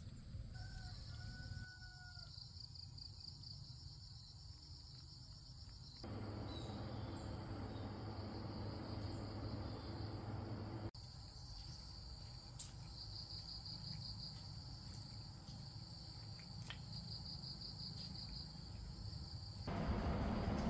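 Insects chirping in a steady high-pitched chorus, with trills that pulse on and off. Under it is a low outdoor hum, and the background noise changes abruptly a few times.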